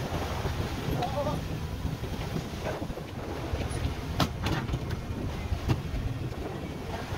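Steady low rumble of a tuna purse seiner's engine and deck machinery, with wind on the microphone and a few sharp knocks about four and five and a half seconds in.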